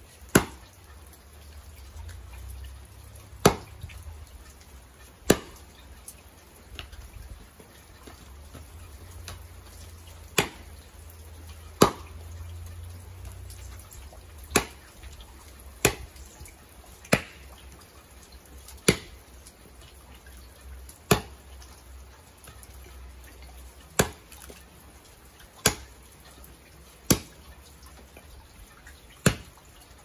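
Felling axe chopping and splitting firewood rounds on a chopping block: about fourteen sharp, separate blows at an uneven pace, one every one to three seconds.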